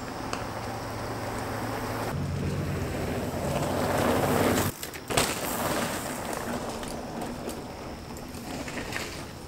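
Mountain bike tyres rolling over a dirt trail, growing louder as the bike comes close, with a low hum under it. The noise peaks about four and a half seconds in and breaks off briefly. A sharp knock follows, then quieter rolling noise.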